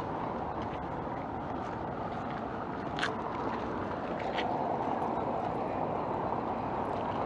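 Street background noise: a steady low rumble, with two short sharp clicks about three seconds and four and a half seconds in.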